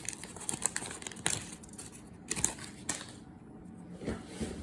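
Trading cards and a foil pack wrapper being handled: irregular rustling with light clicks as cards are slid and flipped, quieter for a moment midway.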